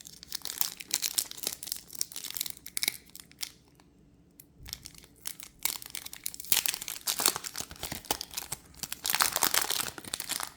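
Foil wrapper of a Pokémon trading card booster pack crinkling and tearing as it is opened by hand, in crackling bursts with a pause of about two seconds partway through.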